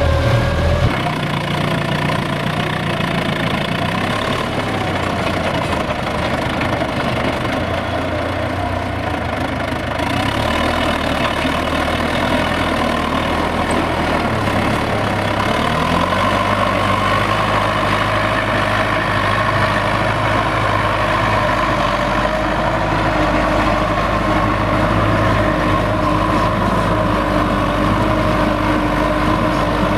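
Belarus MTZ-82 tractor's four-cylinder diesel engine running steadily while ploughing; its note changes about halfway through.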